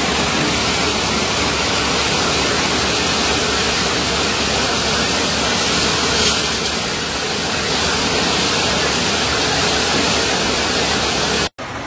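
Muddy floodwater rushing along a flooded street: a steady, loud rushing noise. It cuts off abruptly shortly before the end.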